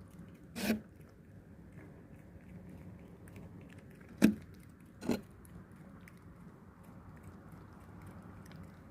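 A hungry cat chewing food, with faint small crunching clicks throughout. Three short, louder sharp sounds come about a second in and twice around the middle.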